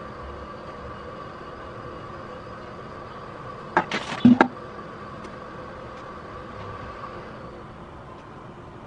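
A trigger spray bottle squirting onto hair: a quick run of about four short sprays about four seconds in, over a steady background hum.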